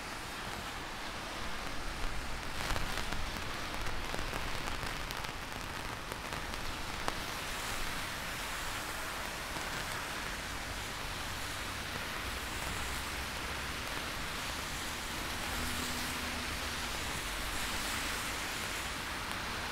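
Heavy rain falling steadily, with a few sharper drop taps in the first several seconds.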